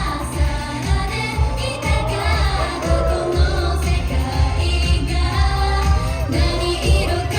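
Live pop song: singing over amplified music with a strong, pulsing bass beat.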